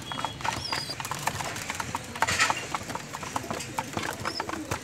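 Domestic pigeons pecking grain off a hard floor: a rapid, irregular patter of beak taps, with a brief louder rustle about two seconds in.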